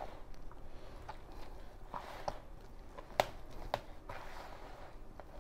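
Hands kneading mandazi dough in a plastic bowl: quiet, uneven rubbing and pressing, with a few sharp clicks, the loudest a little after three seconds in.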